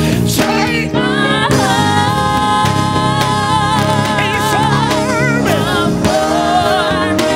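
Gospel worship music: a band playing held chords under sustained, wavering singing.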